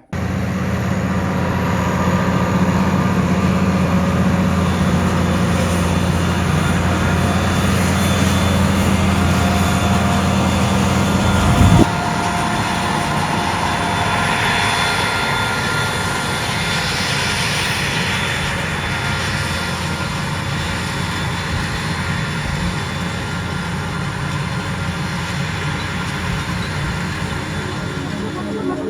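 A vehicle engine running steadily with a strong low hum; about twelve seconds in there is a sharp knock, after which the low hum drops away and the engine noise carries on more quietly.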